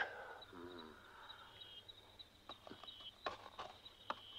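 Quiet outdoor ambience with faint high chirps repeating at an even pace, about three a second, and a brief low murmur about half a second in. A few soft clicks follow later.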